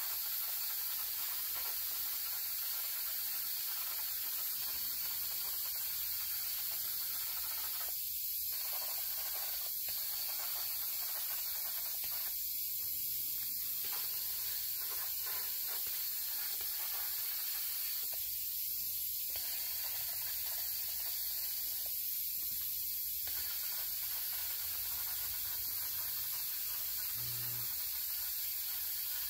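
Red paint being sprayed onto a part of a pressed-steel toy truck, a steady hiss of spray.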